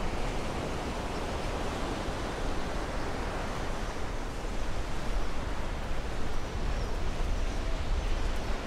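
Steady, even rush of outdoor ambient noise from a soundscape built of field recordings.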